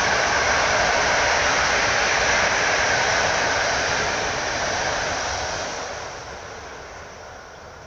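Heavy storm rain pouring down, a steady hiss that fades away over the last two seconds or so.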